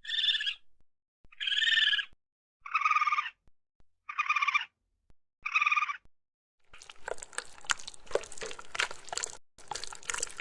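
Made-up raccoon sound effect: five short pitched calls, each about half a second long and about a second apart. About seven seconds in, a crackling, rustling noise full of small clicks takes over, with a short break near the end.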